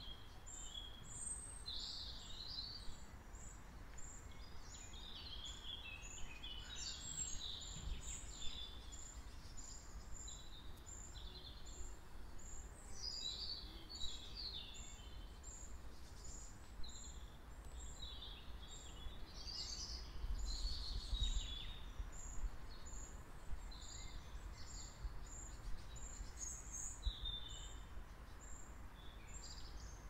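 Songbirds singing in a park's trees in spring, several overlapping phrases, with one high thin note repeated about every three-quarters of a second. A low rumble sits underneath and swells about two-thirds of the way through.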